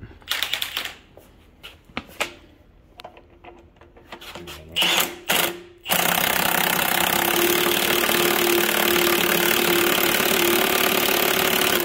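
Impact wrench fitted with a heavy weighted socket hammering on the 22 mm crank pulley bolt of a Toyota 2JZ engine. A few short bursts come first, then one continuous run of about six seconds in the second half.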